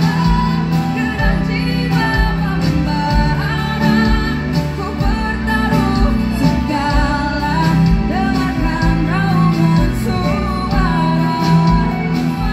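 A woman singing with a live band: held, wavering vocal notes over steady bass, drums, guitars and keyboards.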